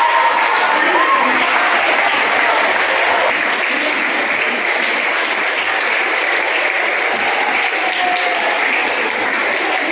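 Large audience of schoolchildren applauding steadily, a dense sustained clapping.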